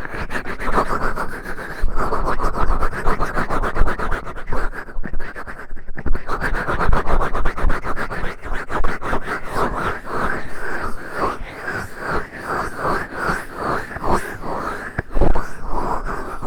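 Fingertip digging and scratching at a microphone's ear for ear-cleaning ASMR: a continuous, muffled rubbing and scratching that breaks into separate strokes, about two to three a second, in the second half.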